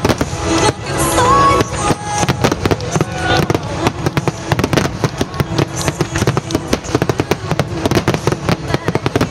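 Wide starmine fireworks barrage: shells launching and bursting in rapid, dense succession, a continuous crackle of booms and pops, with music playing along underneath.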